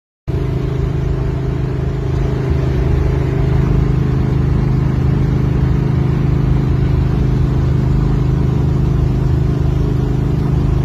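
Car engine and road noise heard from inside the cabin of an older car under way: a steady, loud, low engine drone that begins abruptly and builds slightly over the first few seconds before holding even.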